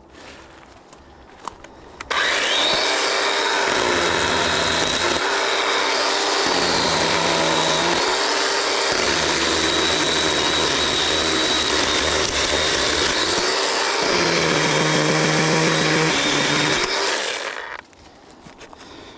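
Chainsaw starting up about two seconds in and cutting into a fallen tree for about fifteen seconds, its pitch sagging and recovering as the chain bites into the wood, then winding down near the end.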